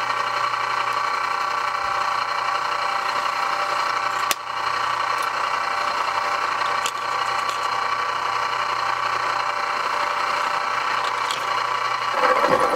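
Drill press running steadily with a countersink bit as it cuts countersinks for Corby bolt heads into a knife handle scale. There is one sharp click about four seconds in, and the sound swells briefly near the end.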